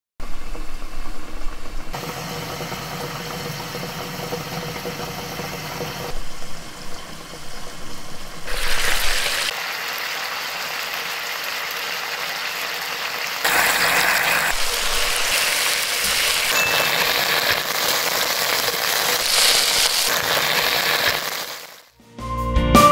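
Chicken drumsticks and garlic cloves simmering in a bubbling soy-ketchup sauce in a frying pan: a steady sizzling hiss that jumps in level a few times.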